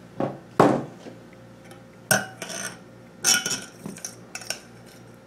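A metal spoon clinking and scraping against a stainless steel saucepan in a series of about eight sharp knocks, a few with a brief metallic ring.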